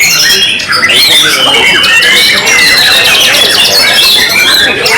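White-rumped shama (murai batu) singing loudly in a fast, unbroken stream of whistles, trills and rapid sweeping notes.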